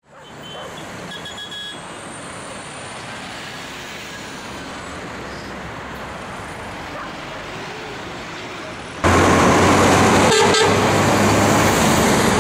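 Steady distant hum of town traffic. About nine seconds in it cuts to loud roadside traffic: a city bus passes close and a vehicle horn sounds briefly.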